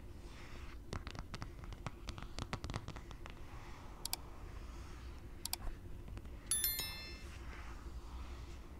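Long fingernails tapping and scratching quickly on the back of a hard phone case, a fast run of sharp clicky taps in the first few seconds. Later come two short clicks and a brief bell chime, the loudest sound, from a subscribe-button animation.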